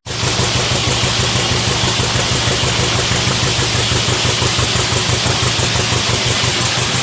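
1935 John Deere Type W two-cylinder stationary power unit running steadily, with an even, regular beat that keeps the same speed throughout.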